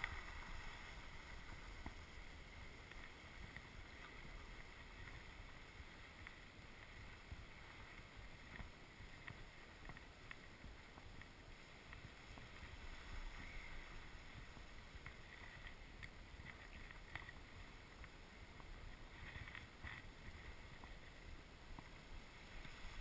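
Faint swish and scrape of skis sliding over snow, under a steady low rumble of wind on the microphone.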